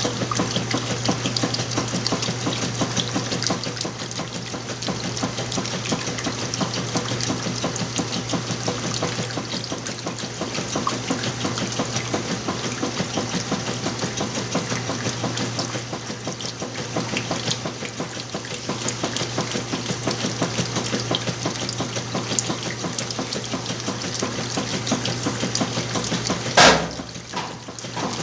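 Whirlpool washing machine running through a wash with a large load: a steady motor hum under the rush and churn of water. A single sharp clack about 26 seconds in.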